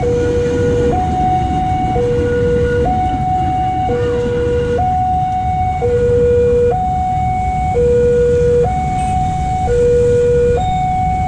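Railway level-crossing warning alarm sounding its two-tone electronic signal, switching between a lower and a higher tone about once a second, over a steady low rumble.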